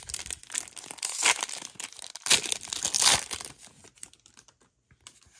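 Crinkling and rustling of a Pokémon card booster pack's foil wrapper, with sharp crackles, as the pack and its cards are handled. It is loudest for about the first three seconds, then dies away to a few faint clicks.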